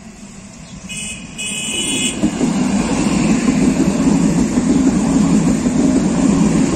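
A low-floor passenger multiple-unit train drawing up and passing close by, its wheels rolling on the rails with a loud, steady rumble that builds from about two seconds in. A short high-pitched tone sounds about a second in.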